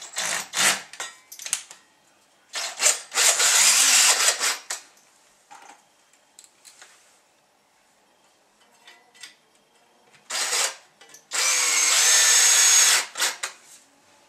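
Cordless drill boring holes into a wall for wall plugs. A few short bursts come first, then two runs of about two seconds each, several seconds apart.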